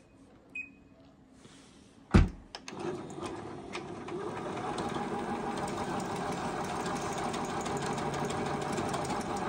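Juki HZL-009 Jupre computerized sewing machine: two short beeps from its touchscreen near the start and a thump about two seconds in, then the machine starts up and runs steadily, stitching a decorative embroidery design.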